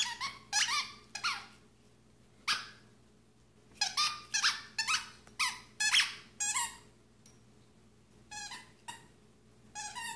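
Squeaker inside a plush dog toy squeaking over and over as a vizsla chews it, in irregular runs of short squeaks that each drop in pitch, busiest in the middle and sparser near the end.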